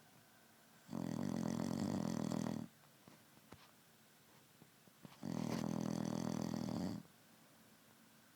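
A man snoring loud enough to wake the dead: two long snores about four seconds apart, each lasting under two seconds, with quiet breathing between them.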